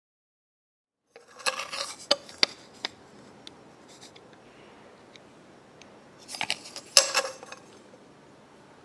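Clinks and knocks from the cast-iron and wood of a 1926 Singer sewing machine and cabinet being handled, in two clusters: one about a second and a half in and another about six seconds in.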